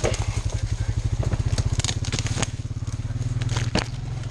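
Four-wheeler (ATV) engine running at low speed with a steady low pulsing note. A few sharp cracks, like sticks or brush snapping, sound over it.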